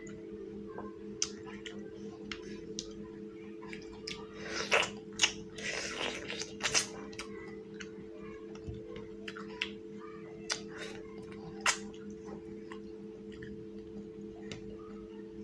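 Close-up chewing and wet mouth clicks of someone eating rice and fish curry by hand. There is a louder stretch of squishy chewing about four to seven seconds in.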